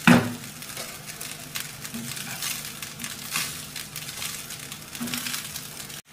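Fried rice sizzling in a nonstick pan over high flame while a steel spatula stirs and turns it, with scraping strokes about once a second. A sharp knock right at the start is the loudest thing.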